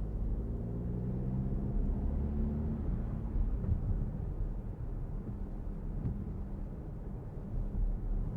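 2023 Citroen C5 Aircross with a 1.5 diesel engine on the move: a steady low road and drivetrain rumble. The engine's hum stands out as a steady tone for the first three seconds or so, then sinks into the rumble.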